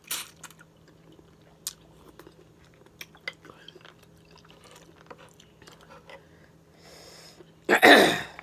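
A person chewing cooked green-lipped mussels, with small wet mouth clicks scattered throughout. Near the end comes a short, loud, breathy vocal outburst that falls in pitch.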